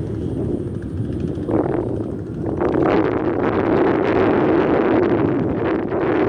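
Wind buffeting the microphone: a rushing rumble with no clear pitch that grows louder in two steps, about one and a half and two and a half seconds in.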